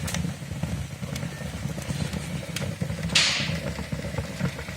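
Wood fire burning in a fireplace: a steady low rumble with a few sharp crackles and pops, and a short hiss about three seconds in.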